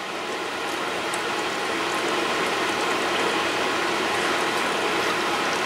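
Water and potatoes in a lidded stainless camping pot near the boil over burning solid fuel tablets: a steady hiss and simmer with fine ticking, growing slightly louder.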